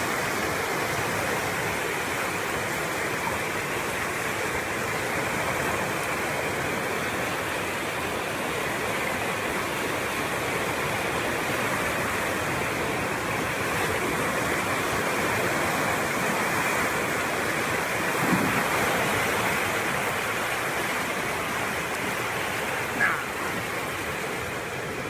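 Flash floodwater rushing steadily, a continuous noise of churning water, with two short knocks in the last third.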